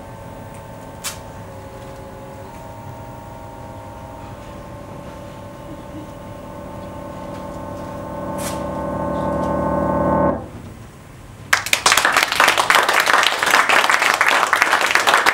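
A jazz band with harp holds long sustained chords. The chords change twice, then swell into a final chord that cuts off abruptly about ten seconds in. A second later the audience breaks into loud applause.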